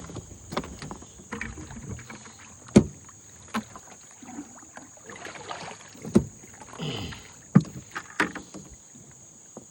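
A cast net full of baitfish being handled and emptied: irregular sharp knocks, with short stretches of splashing and rustling about halfway through.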